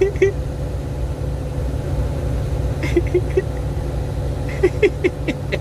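Hitachi excavator's diesel engine running steadily with a constant hum, with a few brief faint chirps over it about three seconds in and again near the end.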